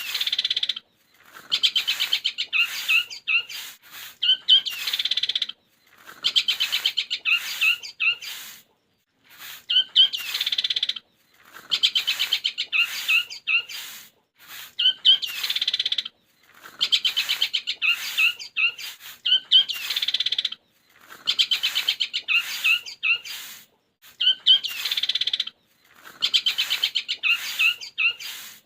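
Songbird chirping in quick, rattling trills: the 'greja petir' sparrow-style song joined with the 'kuntilanak' call, used as a masteran track to teach caged long-tailed shrikes. The phrases repeat with short gaps, about one every four to five seconds, as a looped recording.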